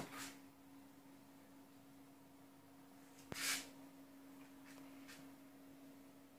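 Near-silent room tone: a faint steady hum, with a sharp click and a short rustle about three and a half seconds in.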